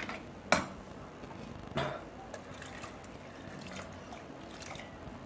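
Water poured from a steel vessel trickles into thick rice porridge in an aluminium pressure cooker, faint and even through the second half. It is preceded by two short knocks, the first about half a second in.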